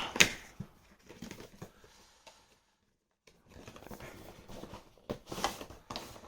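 An action figure's cardboard box and plastic packaging being handled and opened by hand: scattered clicks, taps and rustles, with a sharper click at the start and a short quiet gap around the middle.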